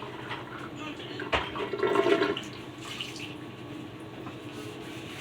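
Liquid being dumped and splashing into a container, with a knock about a second and a half in, then the loudest gush for about a second.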